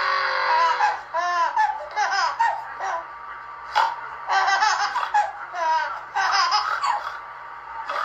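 A young child laughing in high-pitched, repeated bursts, mixed with silly vocal noises.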